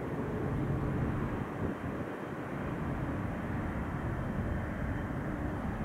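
Boeing 777 freighter's GE90 turbofan engines running at taxi power: a steady, low-pitched jet engine noise with a faint hum.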